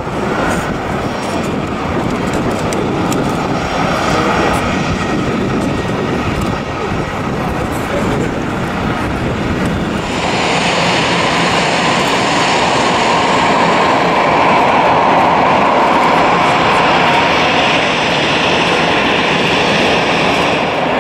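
Steady, loud aircraft noise on an airport apron, a continuous jet-type roar with no distinct events. About ten seconds in it becomes louder and hissier.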